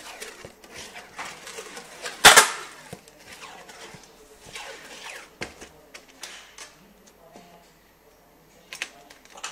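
Handling of a cardboard box wrapped in plastic packing tape: rustling, crinkling and small taps, with one loud sharp crack about two seconds in.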